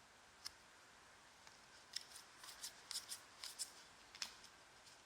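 Faint clicks and rustles of trading cards being handled and slid against one another. There is a single click about half a second in, then a quick irregular run of them from about two seconds in.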